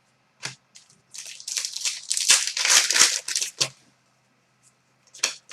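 Crinkling of a hockey card pack's wrapper being handled and opened: a single click, then a burst of rustling lasting about two and a half seconds.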